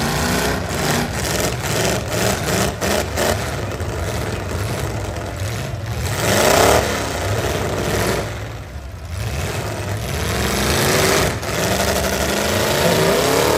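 Full-size pickup truck V8 engines revving hard, the pitch rising and falling as the wheels spin. The revving peaks about halfway through, drops away briefly a couple of seconds later, then climbs again near the end.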